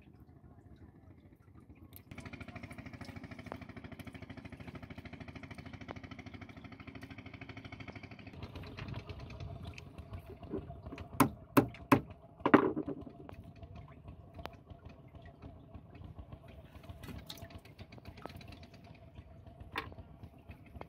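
A motor running steadily with a fast even pulse, setting in suddenly about two seconds in and fading lower after about eight seconds. A few loud sharp knocks land close together near the middle.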